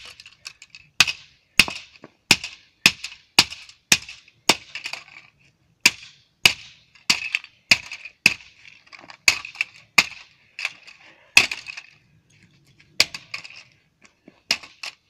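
Repeated hatchet blows smashing a plastic toy gun against asphalt: about twenty sharp cracking strikes, roughly one every half second, with brief pauses twice, and bits of plastic clattering.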